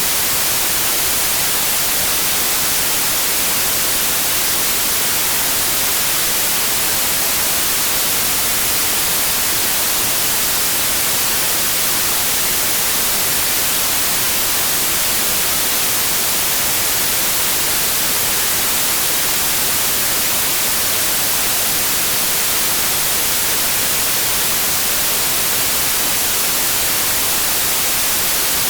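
Steady white noise: an even hiss, brightest in the treble, holding one level without any change.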